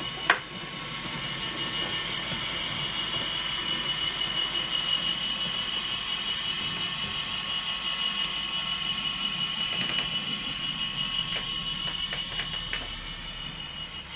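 OO gauge model train running along the layout: a steady high whine over a low rumble of wheels on the track, swelling over the first few seconds and easing near the end. A sharp click comes just after the start.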